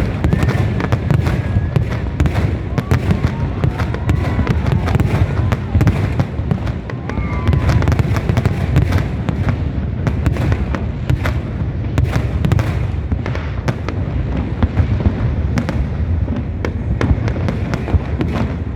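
Fireworks going off in a continuous barrage: overlapping low explosions with many sharp cracks throughout.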